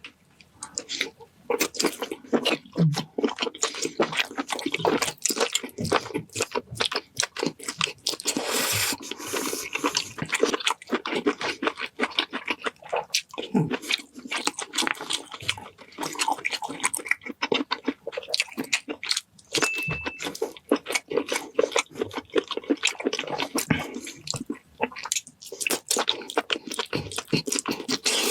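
A person eating seafood close to the microphone: continuous chewing and crunching, a dense run of quick, irregular clicks and crackles.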